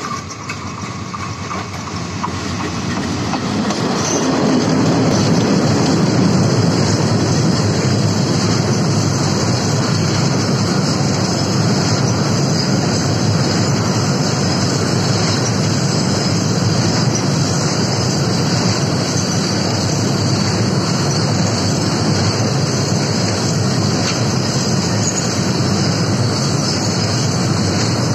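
Diesel-hauled freight train of tank wagons passing close by, its wheels running on the rails. The noise builds over the first few seconds as the locomotive nears, then holds steady as the wagons roll past.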